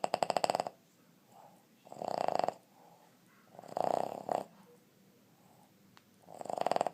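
Boston Terrier snoring with a rapid rattling stutter that sounds like a woodpecker. There are four snores about two seconds apart, each about half a second long, with soft breaths between them.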